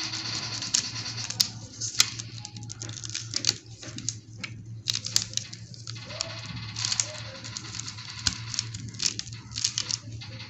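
Rubber-gloved fingers rubbing and picking at the coated base of a die-cast toy car, a crinkly scratching with scattered small clicks, over a steady low hum.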